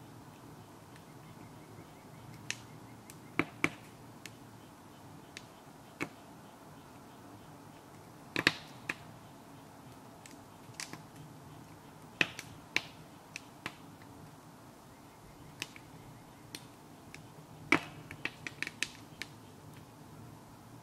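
Wood fire in a maple-sap boiling stove crackling, with scattered sharp pops and several in quick succession near the end.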